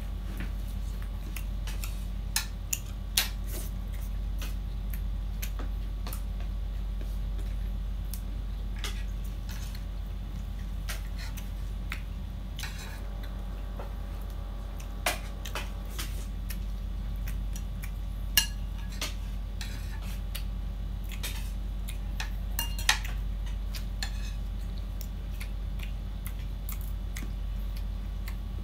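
Metal spoons clinking against ceramic plates and bowls during a meal: scattered light clinks, with a few sharper ones about two to three seconds in and again near the middle and later on. A steady low hum runs underneath.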